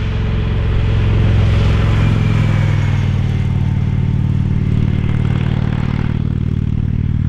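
Motorcycle engine running steadily as the bike rides along the road and passes by, its low note shifting slightly about two seconds in.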